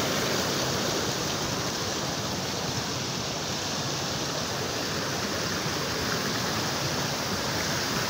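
Creek water rushing over rocks near a waterfall: a steady, even rush of water.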